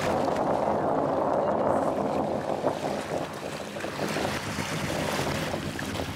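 Steady wind rushing on the microphone, with small waves lapping in shallow sea water.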